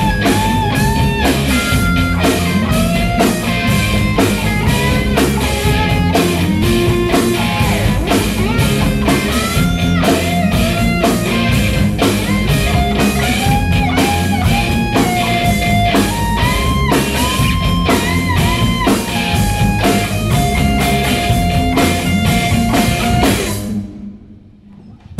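Live rock band playing, with an electric guitar lead line of bent notes over a drum kit and bass. The music stops suddenly near the end, leaving a brief gap.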